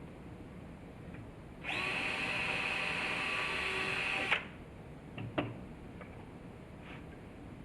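A power drill runs once at steady speed for nearly three seconds, pre-drilling a pilot hole in wood through a drilling jig. A short knock follows soon after it stops.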